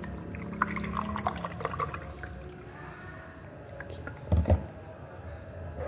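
Milk pouring from a carton into a drinking glass, followed about four seconds in by a couple of dull knocks, louder than the pour, on the table.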